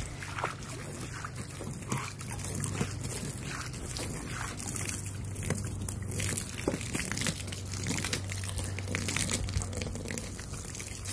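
Water from a garden hose jet splashing onto a wooden deck and against a dog biting at the stream, in many small irregular splashes over a steady rush.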